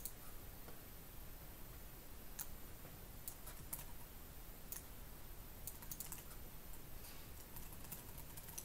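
Computer keyboard being typed on: sparse, irregular key clicks, faint, with a small cluster of quick clicks a little after the middle.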